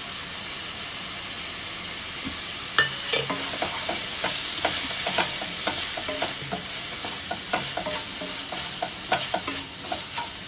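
Onion-tomato masala sizzling in a metal kadai. From about three seconds in, a wooden spatula stirs it, with repeated short scrapes and knocks against the pan.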